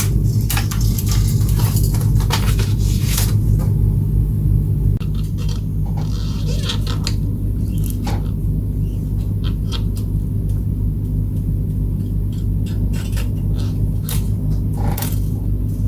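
Steady low hum that drops a little about five seconds in, with scattered light clicks and scrapes of small parts being handled.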